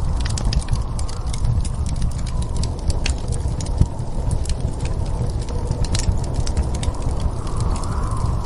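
Wood fire crackling in a fireplace, irregular sharp pops and clicks over a steady low rumble of wind, which swells briefly near the end.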